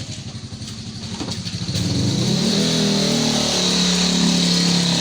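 An engine running, rising in pitch and getting louder about two seconds in, then holding steady.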